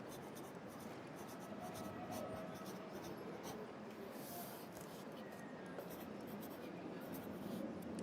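Pencil writing on paper: quick, irregular scratchy strokes. Under them runs a steady hum of city traffic.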